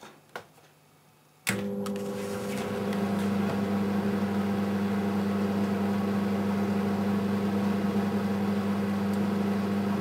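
Hansa microwave oven switching on with a click about a second and a half in, then running with a steady hum from its transformer and fan while it heats a bottle of water.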